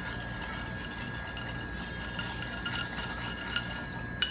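Bar spoon stirring ice in a mixing glass: faint, scattered clinks and scrapes of ice against glass, with one sharper clink near the end. A steady faint high tone runs underneath.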